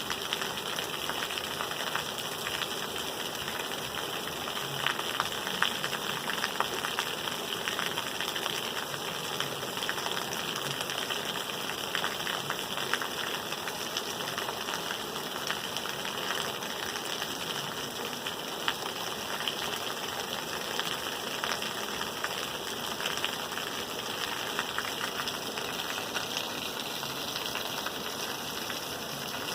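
Steady rain falling, a continuous hiss with many separate drop hits ticking through it.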